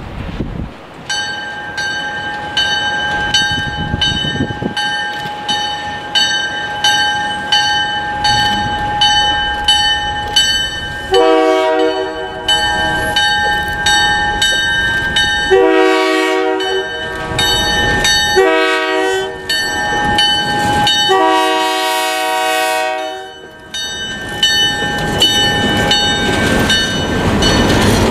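Grade-crossing warning bell ringing about twice a second while an approaching diesel freight locomotive blows the crossing signal on its horn: long, long, short, long. The bell stops near the end as the locomotive's engine rumble rises close by.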